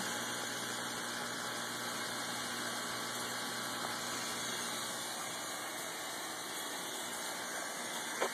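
Aquarium pump running: a steady hum under an even water hiss, with a brief knock near the end.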